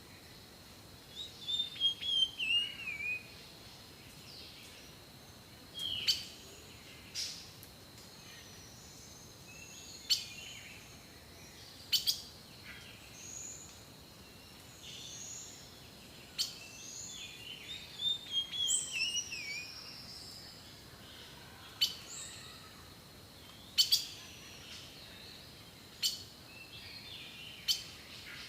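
Wild birds singing and calling: short, sharp chirps every couple of seconds and, twice, a longer warbled phrase that falls in pitch, all high-pitched, over a faint steady high tone.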